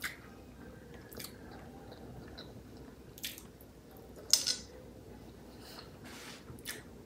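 Close-miked mouth sounds of a person biting and chewing food, a few short wet smacks spaced out, the loudest about four and a half seconds in.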